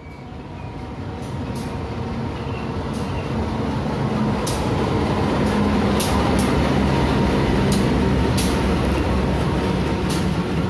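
Diesel-electric locomotive hauling a passenger train into the station. Its engine rumble grows louder over the first few seconds as it draws alongside, then holds steady. Sharp clacks from the wheels are heard every second or two as the locomotive and coaches roll past.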